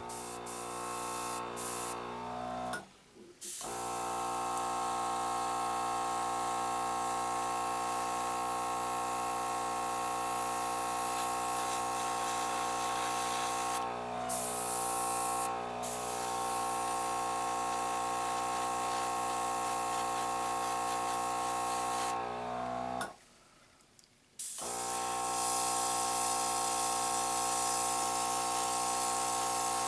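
Airbrush hissing as it sprays paint, over a steady humming drone from its air supply. Both drop out briefly twice, once near the start and once about three-quarters of the way through.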